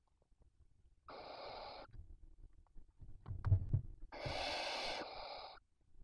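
Barn owl nestlings giving hissing begging calls, the chicks' food-begging "snore": a short hiss about a second in and a longer one at about four seconds. Between them come a few soft thumps of the chicks shifting in the nest.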